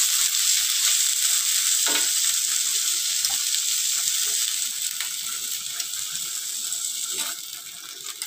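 Hot olive oil sizzling steadily in the pan as grilled chicken pieces are lifted out, with a few light clicks of metal tongs. The sizzle drops off about seven seconds in.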